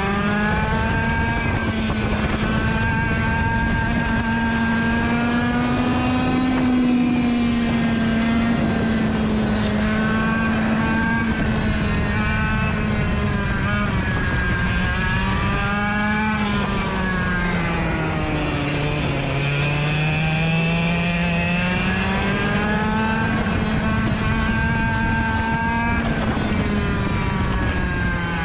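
Rotax DSB two-stroke kart engine under racing load, held high in its revs and briefly dropping and climbing again as the kart lifts and accelerates through corners, with one deeper drop about two-thirds of the way through.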